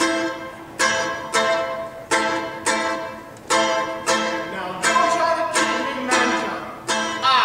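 Mandolin playing chords alone, about three strums every two seconds, each one ringing out and fading before the next.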